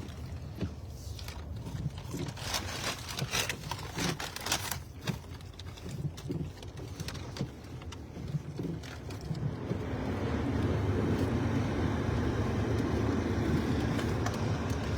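Scattered clicks and rustles over a low rumble, then from about ten seconds a louder, steady low rumble of a car driving, heard from inside the cabin.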